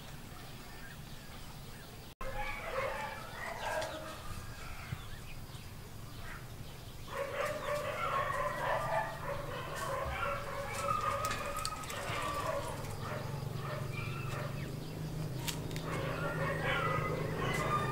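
Chickens clucking in a yard, with a rooster crowing, in short irregular calls that start a couple of seconds in and pick up again from about halfway. A low hum grows louder toward the end.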